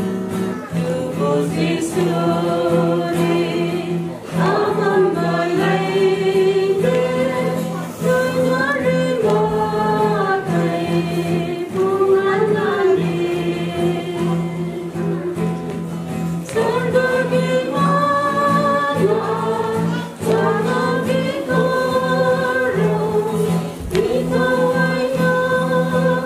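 A small group of women and a man singing a hymn together in harmony, with long held notes that move from one pitch to the next every second or so.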